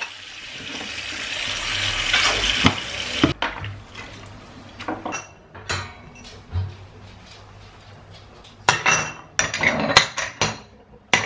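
A kitchen tap runs into a sink over small play dishes, then cuts off abruptly about three seconds in. Scattered clinks and knocks follow as small plates and bowls are handled, and a busier run of clatter near the end comes as the plates are stacked.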